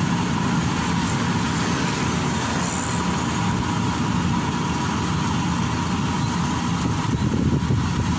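Maxxi Bimo 102 rice combine harvester running while harvesting, a steady diesel engine drone with a constant high whine over it.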